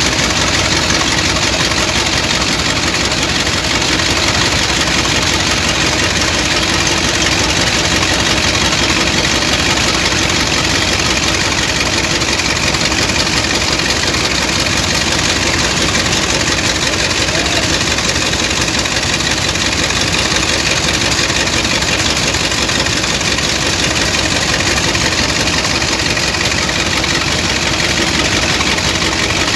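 Engine of a sand dredging pump running steadily, with the sand-and-water slurry splashing as it pours from the discharge pipe into the pit.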